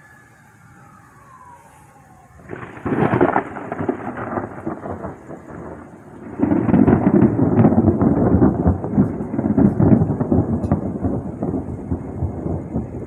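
Thunder: a crackling peal breaks out about two and a half seconds in and eases off. A louder, longer rumbling peal follows from about six seconds and fades near the end.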